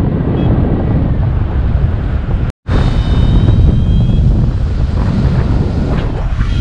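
Loud wind rushing and buffeting over a GoPro's microphone during a paraglider flight. It cuts out for an instant about two and a half seconds in, at a cut between flights.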